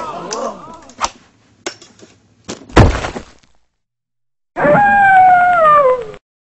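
A sharp knock, then about three seconds in a loud crash with a brief shattering ring. After a second of quiet comes a single pitched tone that slides steadily downward for about a second and a half and cuts off abruptly.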